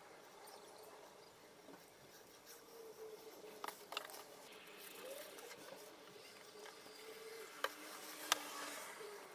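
Softwood frame pieces being handled and pressed together on an MDF workbench: soft rubbing and scraping with a few sharp wooden taps, two close together a little before halfway and two more near the end.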